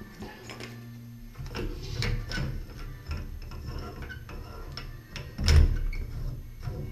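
Irregular clicks, knocks and scraping of metal and plastic trim parts being handled and fitted onto a Grohe handheld shower control valve, with one loud knock about five and a half seconds in.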